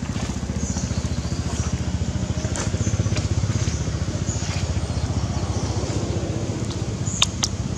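An engine running steadily nearby with a low, rapid pulse, like a small motorcycle engine idling. Two sharp clicks come near the end.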